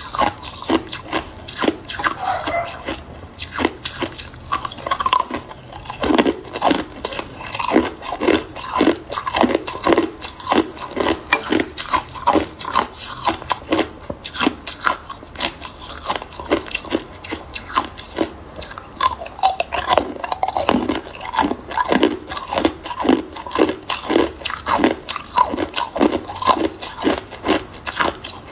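Hard ice cubes being bitten and chewed: a steady run of sharp crunching cracks, about two or three a second.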